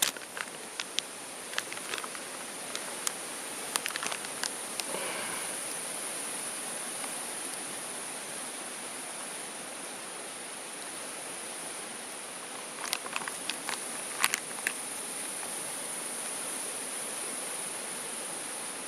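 Steady high-pitched chirring of insects in a summer forest, over a soft even hiss. Scattered short clicks and knocks from handling things cluster in the first few seconds and again about two-thirds of the way in.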